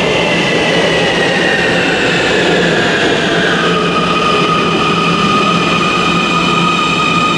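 Siemens C2 U-Bahn train braking into the station: its electric drive whines in several tones that fall in pitch together over the rumble of the wheels, until it stops about three and a half seconds in. It then gives off a steady whine at fixed pitches while it stands at the platform.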